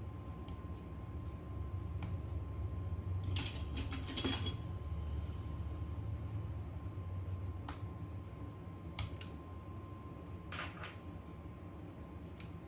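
Small metal repair tools clicking and clinking against each other and the phone's parts: scattered light taps, with a quick run of clinks about three to four seconds in. Under them runs a steady low hum and a faint steady whine.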